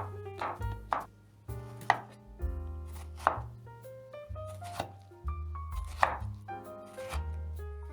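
A knife chopping on a cutting board, several sharp, irregularly spaced chops, over background music with a stepping bass line.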